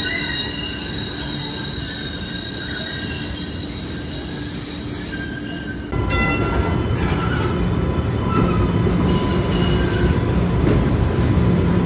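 Green Line light-rail trains moving through the underground station, steel wheels squealing on the rails over a running rumble. About six seconds in the sound jumps abruptly to a louder, heavier rumble with more squealing as a train passes close by.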